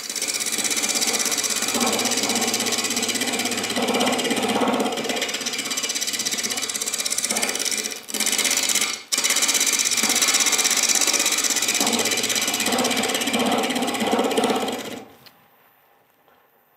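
Carbide roughing tool scraping the outside of a wood bowl blank spinning on a lathe: a loud, rapid chattering cut, the blank still out of round so the tool meets wood in quick pulses with every turn. The cut breaks off briefly twice about eight and nine seconds in, then stops about fifteen seconds in.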